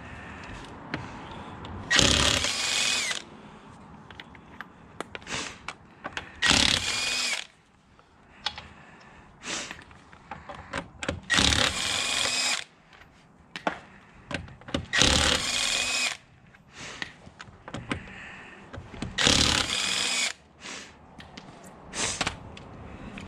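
Cordless impact wrench zipping off a car's lug nuts to remove the wheel. Five runs of about a second each, several seconds apart, with a shorter one near the end.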